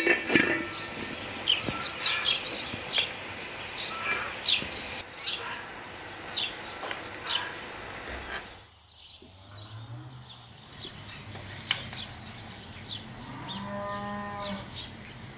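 Small birds chirping busily; the birdsong stops abruptly about halfway through. After that a cow moos, a low call and then a clearer call of about a second near the end.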